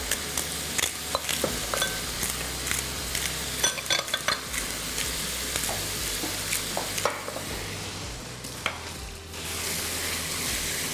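Minced meat with onion, carrot and tomato sauce sizzling in a frying pan as it is stirred, with scattered clicks and scrapes of the utensil against the pan.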